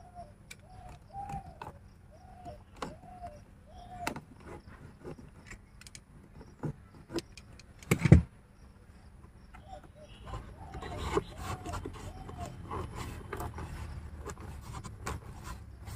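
Hands working a thin cable in under a car tailgate's rubber weatherstrip: soft rubbing and scattered light clicks, with one louder knock about eight seconds in and busier rubbing from about ten seconds.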